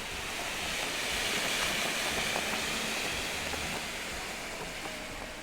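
Vulcan red smoke grenade hissing steadily as it burns and pours out smoke, swelling a little about a second in and easing off toward the end.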